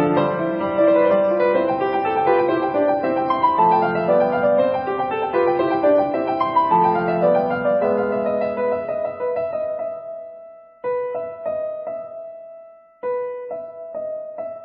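Background piano music: a gentle melody over chords, thinning after about ten seconds to a few sparse repeated notes with brief breaks.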